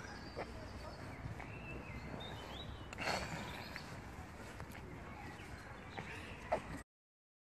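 Quiet open-air background noise with a few faint high chirps and a brief rustle about three seconds in; the sound cuts off abruptly near the end.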